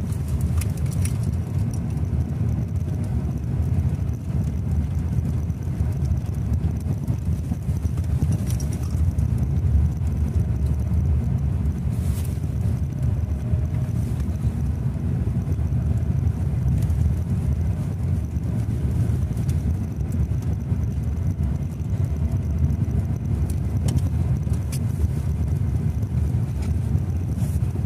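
In-cabin noise of a Lada Vesta driving over a dirt road: a steady low rumble of tyres, suspension and engine, with a few faint clicks here and there.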